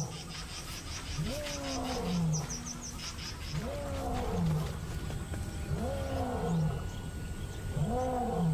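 Male lion roaring: four deep grunting calls about two seconds apart, each rising and then falling in pitch. It is a pride male's territorial roar, a clear message of ownership.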